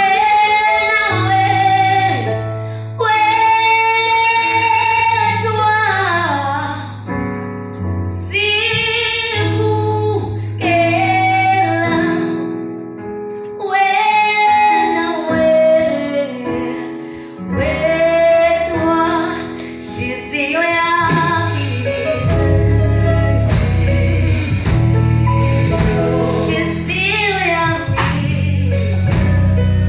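A woman singing a gospel song solo into a microphone, in long held and sliding phrases, over an instrumental accompaniment with steady bass notes. The accompaniment grows fuller and heavier in the bass in the last third.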